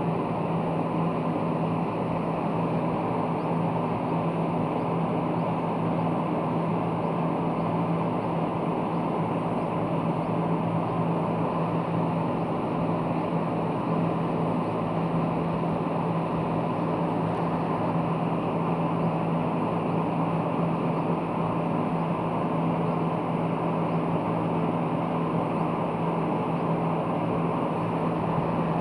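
Steady machine hum with a low droning tone.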